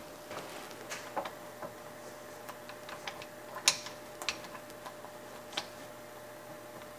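Scattered light metallic taps and clicks as an aluminium block is handled and seated in a milling vise on parallels, with the sharpest tap a little past halfway. A faint steady machine hum runs underneath.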